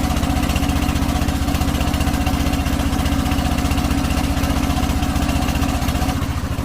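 A small engine running steadily with a rapid, even beat; about six seconds in it drops in level and its beat slows.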